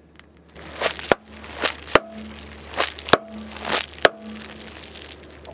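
Car tyre rolling over a strip of inflated plastic packing air cushions, bursting them one after another: four sharp pops about a second apart, each just after a short swell of crinkling plastic, over a low steady hum.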